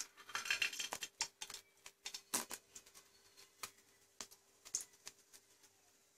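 Jangri batter of ground urad dal frying in hot oil as it is piped in: irregular crackling and popping, busiest in the first second.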